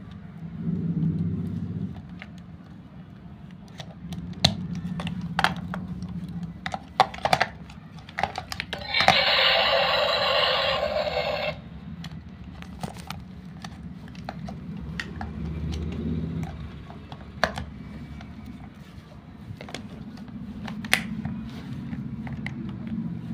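Small plastic clicks, taps and scrapes of a toy RC tracked excavator being handled while its rechargeable battery and wire connector are fitted into the battery compartment, over a low background rumble. About nine seconds in, a louder noisy sound of unclear source lasts about two and a half seconds.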